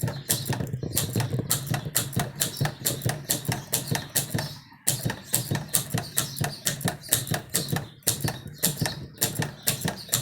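1919 Corona No. 3 portable typewriter being typed in a quick, even run of keystrokes, several a second, with a brief pause about five seconds in. The keys are typing the figure characters with the figure lock set.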